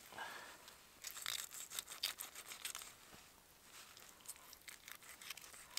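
Knife blade scraping and cutting along a small fish on a rock as its fillet is cut away from the bones, in a run of short scraping strokes about a second in and a few more near the end.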